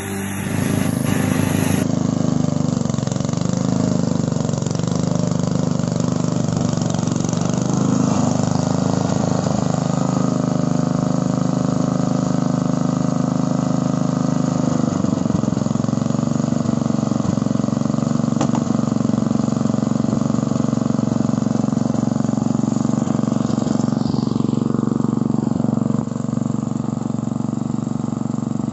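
Petrol walk-behind rotary lawn mower's small engine running steadily, its pitch dipping briefly about halfway through.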